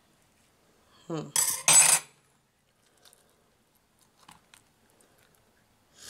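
Silicone egg-cooker cup and its plastic lid being handled over a plastic bowl: a short squeak, then two loud scraping clatters about a second in, followed by a few faint clicks while a hard-boiled egg is squeezed out of the cup.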